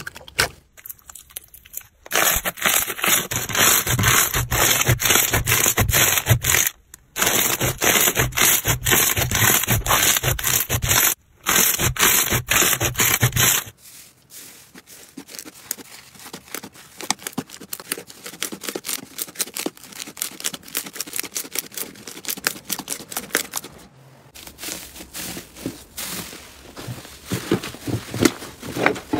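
Hands squeezing and kneading slime, making a dense run of crackling clicks and pops. The clicking is loud through the first half, softer from about halfway, and picks up again near the end.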